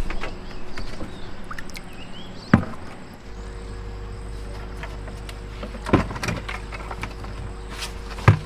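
Hollow knocks of plastic buckets being handled and set down on a wooden boat deck: three sharp ones a few seconds apart with smaller clicks between, over a steady low hum.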